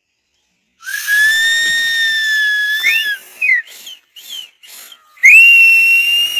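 Loud human whistling: one long steady note, then a few short gliding chirps, then a long higher note near the end.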